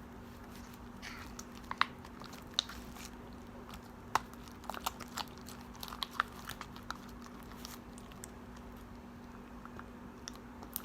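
Glue slime being worked by hand or spoon: scattered, irregular small wet clicks and squelches as the sticky, jiggly mixture is pressed and pulled, over a faint steady hum.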